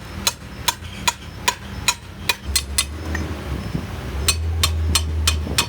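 Hammer striking metal in quick, ringing blows, about two or three a second, with a pause of a second or so midway before the blows resume. A low steady hum runs underneath.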